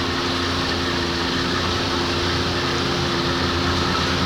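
A 1992 60 hp Johnson three-cylinder two-stroke outboard runs at a steady speed with an unchanging tone. Water and wind noise hiss around it.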